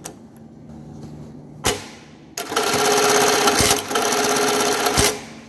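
Juki LK-1900-series computerised button sewing machine running a button-stitch cycle, sewing a button onto fabric. A click about a second and a half in, then a fast, even run of stitching for about two and a half seconds with a brief break partway, ending in a click.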